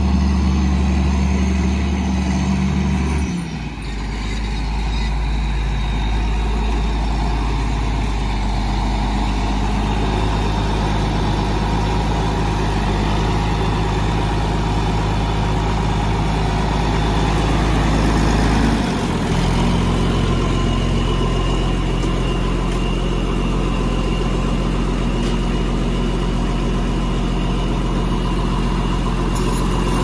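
A John Deere farm tractor's diesel engine running steadily. Its engine note shifts about three seconds in and again near nineteen seconds.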